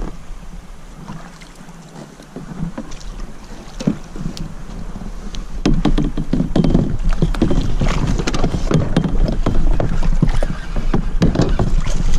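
Fishing kayak moving on the river: water sloshing and splashing against the hull and paddle, with wind rumbling on the microphone. About halfway through it grows louder, with many small knocks and splashes.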